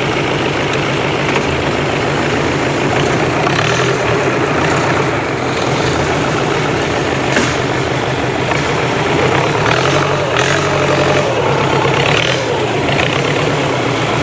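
Boat engine running steadily, loud from on board.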